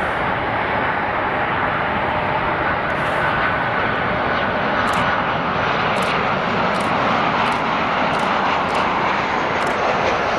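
Boeing 737 airliner's jet engines on final approach and flare to landing: a steady, continuous rushing jet noise with a faint whine through it.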